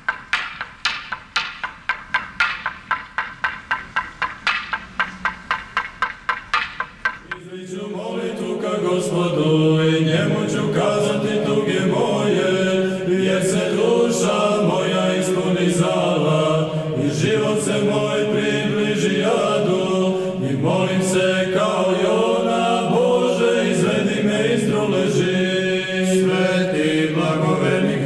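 A quick, even run of sharp strikes, about four a second, stops after some seven seconds. Then Serbian Orthodox church chant begins: several voices singing slow, long-held notes.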